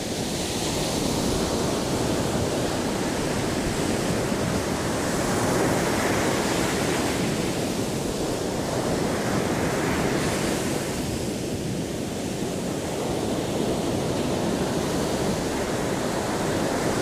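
Sea surf breaking and washing up the shore, the rush swelling about every five seconds, with wind on the microphone.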